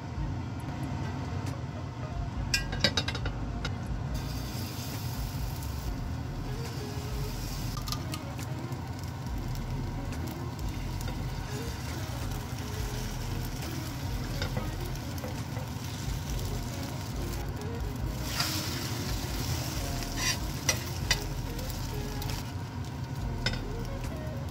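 Jeon batter and egg frying in oil on a stainless steel griddle pan, a steady sizzle. A metal spatula scrapes and taps against the pan in short clusters, about three seconds in and again near the end.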